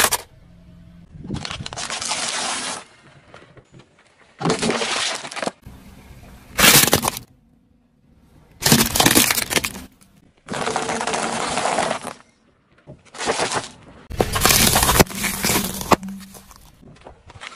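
Objects cracking and crunching as a car's tyre rolls over them, heard as about seven separate spells of a second or two, each starting and stopping abruptly.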